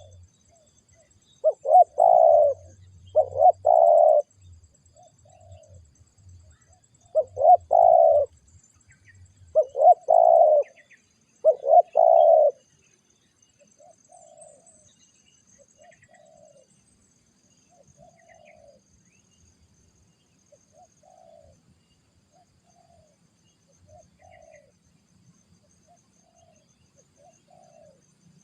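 Spotted doves cooing: several loud coo phrases in the first half, then a run of fainter, evenly repeated coos about every second and a half.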